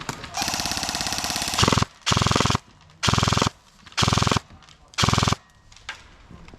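Airsoft gun firing on full auto: a rapid stream of shots, then four short bursts about a second apart.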